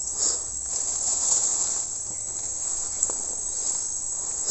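Steady high-pitched insect chorus droning without a break, with a brief noisy stretch in the first couple of seconds, a faint click about three seconds in and a sharp click near the end.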